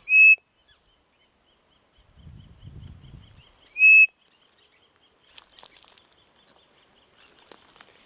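Turned wooden quail call (pio de codorniz, mimicking the northeastern nothura) blown twice, at the start and about four seconds later, each a short, clear, high whistled note at a steady pitch. The wood is turned to give the call a horn-like tone. A faint, rapid chirping runs in the background.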